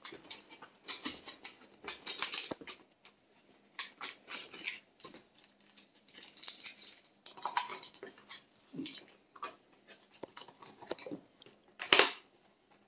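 Plastic bag and oxygen absorber packets crinkling and rustling in irregular bursts as they are handled, then a sharp snap near the end as a plastic food container's lid is pressed shut.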